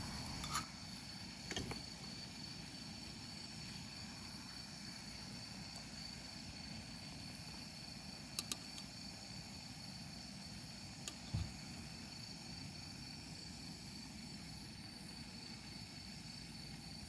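Quiet outdoor ambience: a steady low hiss with a thin high hum, broken by a few faint clicks and knocks.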